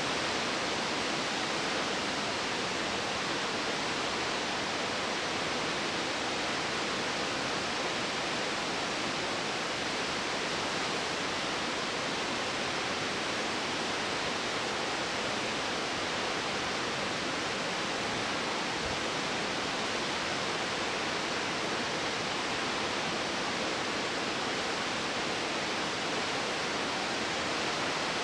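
Taughannock Falls, a tall waterfall plunging down a gorge wall into its pool: a steady, unbroken rush of falling water.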